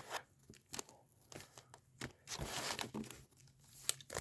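Foil trading card pack wrappers crinkling and rustling as the packs are handled and stacked, with a few light taps; the longest rustle comes a little past the middle.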